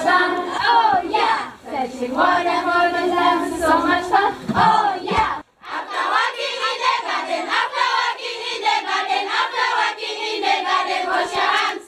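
A group of children singing together in chorus. The singing cuts off abruptly about five seconds in and a different group song starts.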